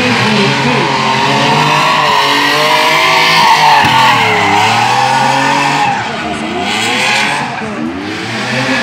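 Rally car drifting with its tyres spinning and squealing, the engine's revs rising and falling sharply as the throttle is worked, dipping and climbing again several times.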